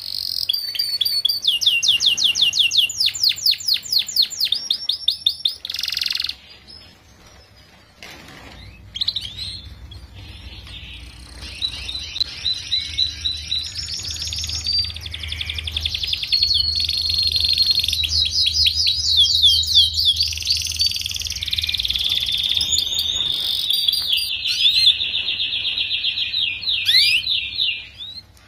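Canary singing long, rapid trills and rolls of quickly repeated high notes. The song breaks off about six seconds in and picks up again some two seconds later.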